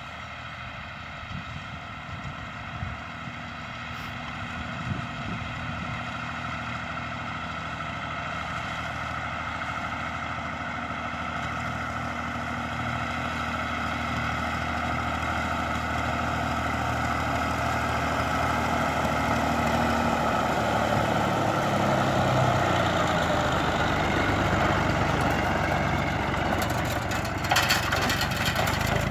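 Massey Ferguson 135 tractor engine running at a steady speed while pulling a rotary hay rake, growing louder as the tractor comes closer. A short burst of clicking comes near the end as it passes close.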